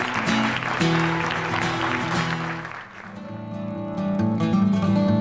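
Audience applause over instrumental background music. The applause dies away about three seconds in, leaving only the music.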